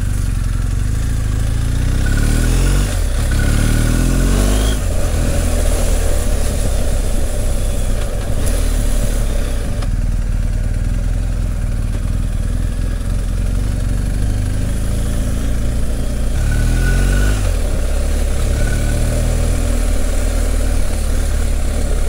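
BMW R 1250 GS Adventure's boxer-twin engine under way, its note rising in pitch several times as the bike accelerates, over a heavy low rumble of wind on the microphone.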